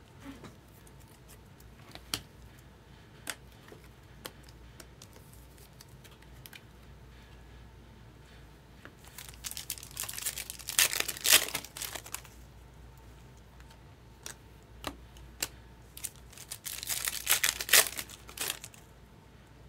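Trading-card pack wrappers being torn open and crinkled by hand, in two spells of rustling: one about halfway through and one near the end. Light clicks and taps of card handling fall between them.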